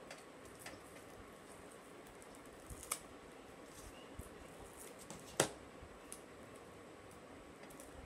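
Small scissors snipping double-sided tape: a few faint, scattered clicks, the sharpest about five and a half seconds in.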